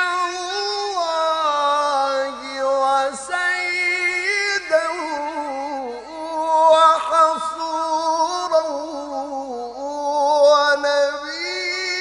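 A man reciting the Qur'an in melodic tajwid style in maqam Nahawand: one high voice holding long, ornamented notes that glide up and down, with few breaks.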